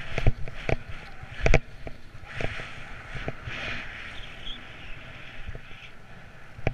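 Skis running over moguls: sharp knocks as the skis hit the snow bumps in the first couple of seconds, the loudest about a second and a half in. Then the hiss of skis scraping and gliding on packed snow, fading as the slope flattens out.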